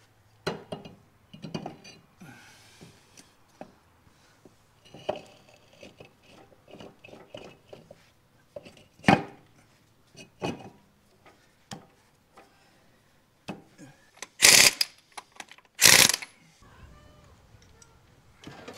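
Scattered clanks, knocks and scrapes of metal as a heavy solid-tyred forklift wheel is worked onto its hub and studs, with two loud, short bursts about a second and a half apart near the end.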